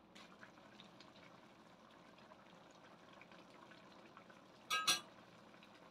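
Chopped tomatoes simmering in a little water in an aluminium wok, a faint steady bubbling with small scattered pops. A brief loud ringing knock sounds about five seconds in.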